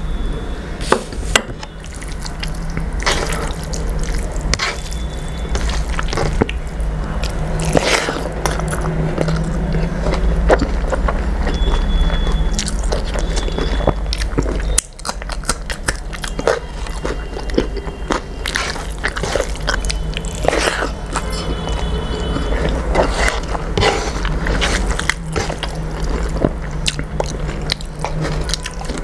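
Eating by hand close to the microphone: fingers mixing rice with a green vegetable curry, and a person chewing, making wet squishing sounds and many sharp smacking clicks. A liquid is poured over the rice at the very start, and a steady low hum lies underneath.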